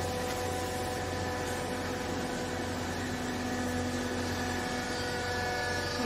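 Hydraulic power unit of a vertical clothes baler, an electric motor driving the pump, running with a steady hum and several steady tones; a lower tone joins about two seconds in.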